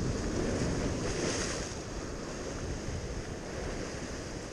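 Sea waves breaking and washing against a rocky shore, with a wave swelling into a louder hiss about a second in, over a low rumble of wind on the microphone.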